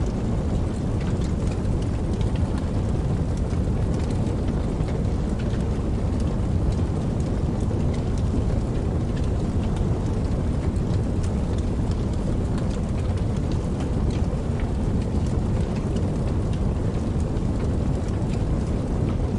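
Campfire crackling with many small sharp pops over the steady rushing of a creek; the sound cuts in suddenly at the start.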